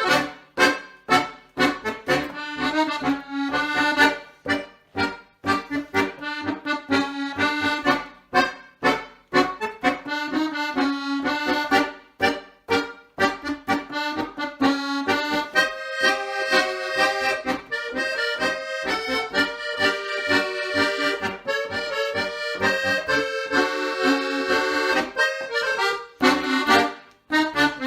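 Background music led by an accordion, playing a lively tune over a steady rhythmic beat.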